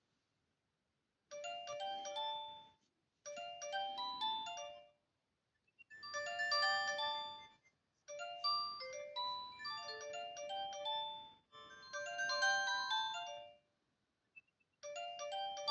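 Polyphonic ringtone melody played by an Alcatel OT-217D mobile phone: short bell-like notes in stepped runs, starting about a second in and repeating in phrases with brief pauses between them.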